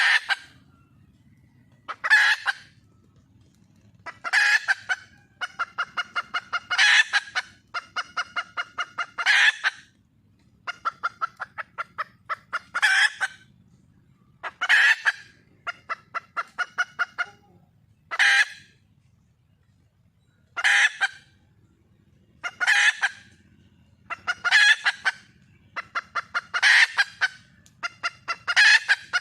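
Red junglefowl hen calling, a loud harsh call about every two seconds, several of them led by a rapid run of clucks at about five a second.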